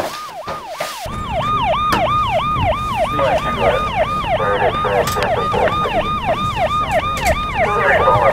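Emergency vehicle siren wailing in a fast yelp, its pitch sweeping up and down about three times a second. It grows louder about a second in, joined by a low rumble.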